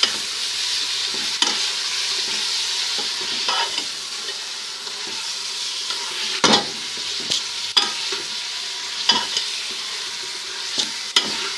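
Beef pieces frying in hot ghee in a pot with a steady sizzle. A spoon knocks and scrapes against the pot every second or two as the meat is stirred.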